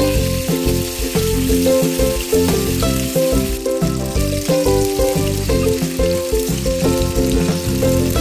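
Tofu slices frying in oil in a pan, a steady sizzle, with background music playing over it.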